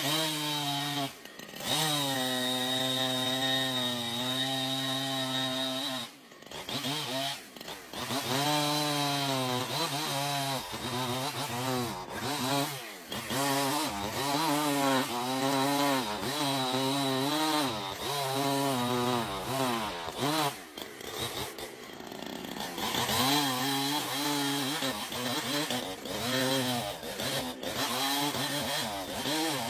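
Chainsaw engine running at high speed while cutting wood, its pitch sagging and recovering over and over as the chain loads up in the cut. It breaks off briefly a few times.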